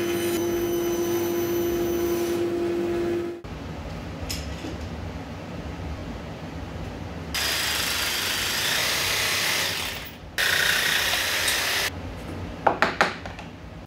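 Band saw running with a steady hum. Then a cordless jigsaw cuts through 6 mm MDF in two runs of a couple of seconds each, making the handle slot in a template, followed by a few sharp knocks.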